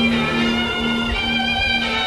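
Background music of bowed strings, violin leading, playing slow held notes.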